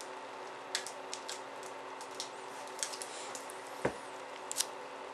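Foil card-pack wrapper crinkling in the fingers as it is peeled open: a few short, separate crinkles, with one dull bump a little before four seconds in.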